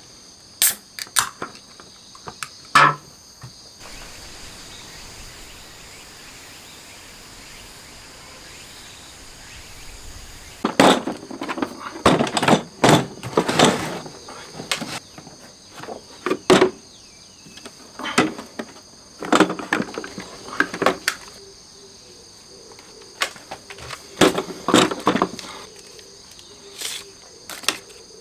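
Steady high-pitched chorus of insects, with irregular sharp knocks and clatters coming in clusters, thickest from about eleven to fifteen seconds in and again from about eighteen to twenty-six seconds.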